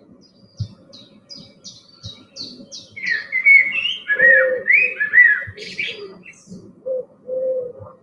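Common blackbird singing: a run of thin, high chirps, then a loud, fluty warbling phrase of gliding notes about three to five seconds in.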